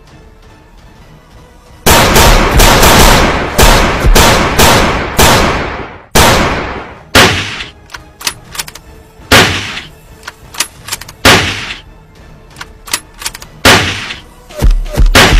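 Dubbed gunfire sound effects: rapid machine-gun bursts and single shots, each a sharp crack with an echoing tail. They start about two seconds in, come thick and fast for a few seconds, thin out to single shots, then burst rapidly again near the end.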